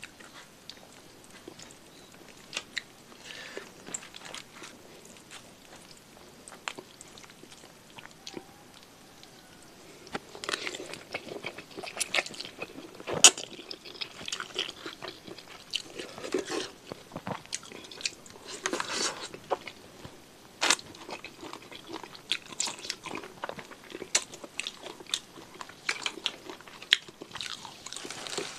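Close-miked eating of instant noodles and satay: faint mouth clicks and chewing at first, then from about ten seconds in louder slurping of noodles and wet chewing with sharp clicks.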